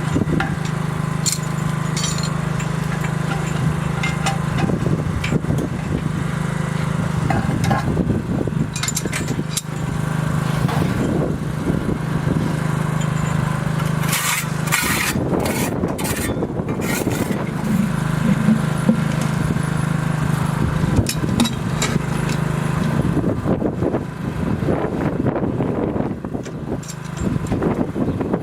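A small machine's motor running with a steady hum, with metal scraping and clicking as the tin lid is worked. The hum stops for a few seconds in the middle while sharp scraping noises sound, then resumes and fades near the end.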